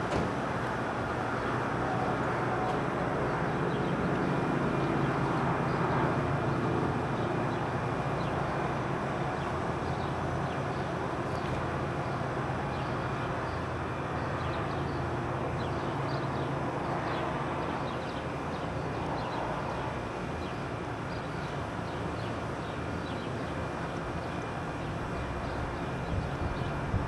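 Strong wind of a sandstorm blowing steadily, a dense rushing noise heaviest in the low end.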